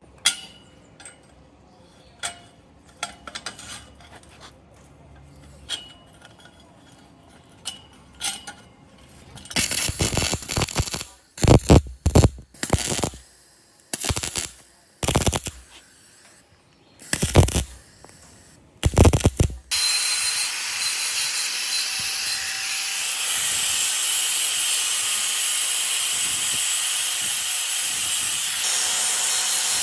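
Workshop tool sounds. First come scattered light clicks and knocks of handling. About ten seconds in, a run of short, loud bursts from a power tool starts. From about twenty seconds in, the tool runs steadily with a loud, hissy noise.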